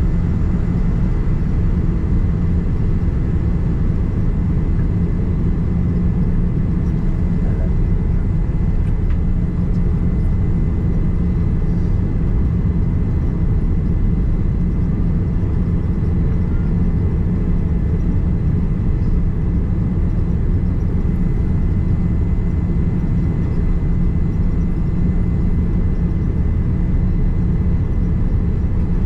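Cabin noise of a Boeing 787-9 airliner on final approach: a steady, even rumble of engine and airflow heard inside the cabin, with a faint steady whine above it.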